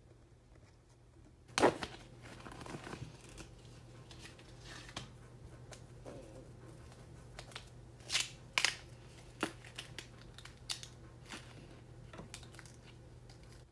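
Dry, papery sheath being peeled and torn from a long plant stalk by hand, crackling and crinkling. A sharp tear comes about a second and a half in, then a run of separate crackles and snaps in the second half.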